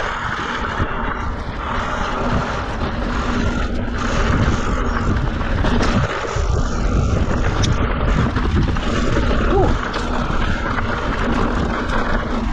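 Mountain bike descending a steep, loose, rocky trail on the brakes: tyres grinding and clattering over loose rock with a continuous rattle of small knocks, and a faint steady drone underneath. The brakes are held on hard throughout the descent and are hot enough to smell.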